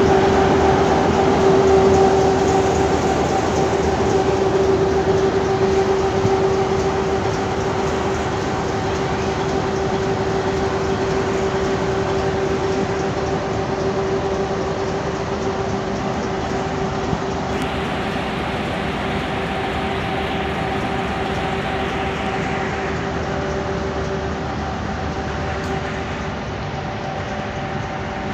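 Diesel-electric locomotive, a Pakistan Railways PHA-20, idling: a steady engine drone with a steady droning note over it, gradually growing quieter.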